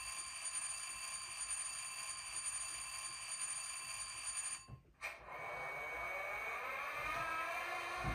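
An HO-scale SD40-2 model locomotive's SoundTraxx Blunami sound decoder plays through its twin sugar-cube speakers. First a locomotive bell rings steadily, then it cuts off suddenly. About five seconds in, diesel engine sound starts and climbs in pitch, with a rising whine.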